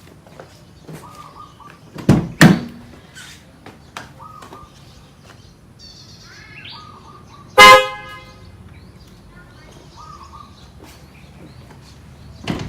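Newly fitted PIAA aftermarket car horn giving one short blast about seven and a half seconds in, tested after installation. Two loud sharp thumps come about two seconds in, and another near the end.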